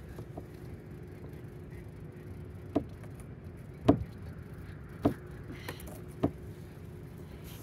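Four dull thumps about a second apart, the second the loudest, over a steady low rumble with a faint hum.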